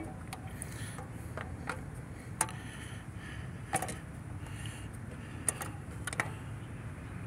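Scattered light clicks and knocks, about eight at irregular intervals, as a hand handles the plastic thermostat housing and its electrical connector in the engine bay, over a steady low rumble.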